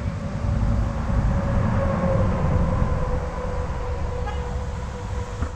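A motor vehicle going by, a steady droning hum over a low rumble that fades near the end.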